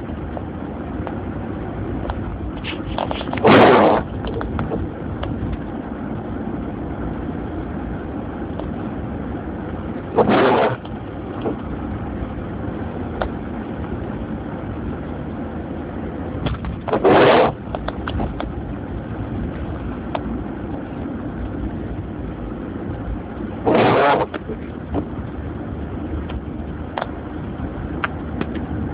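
Steady road and engine noise inside a moving car. About every seven seconds, four times, comes a short loud scraping sweep, typical of windshield wipers on an intermittent setting clearing snow.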